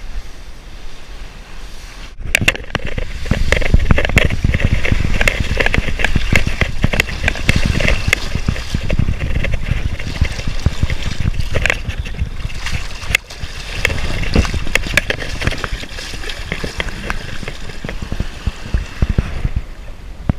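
Shallow surf water sloshing and splashing close to the microphone as a landed shark is carried into the wash and let go. It is quieter for the first two seconds, then loud and choppy for the rest.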